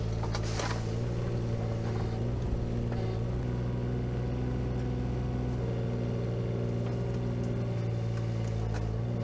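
Kubota KX018-4 mini excavator's three-cylinder diesel engine running with a steady drone as its arm digs under and tears out a holly bush. A few faint cracks can be heard over the engine.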